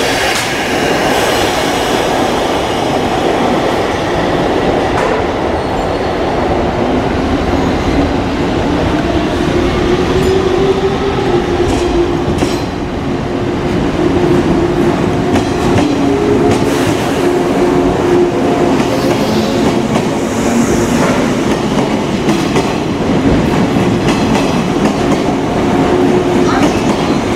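JR 185 series electric train pulling out along a platform, its MT54 traction motors humming while the wheels clack over the rail joints, with the station's hard walls adding echo.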